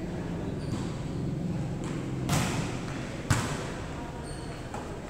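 A volleyball being hit twice, about a second apart, during a rally in a large gymnasium; the first hit rings briefly in the hall, the second is sharper.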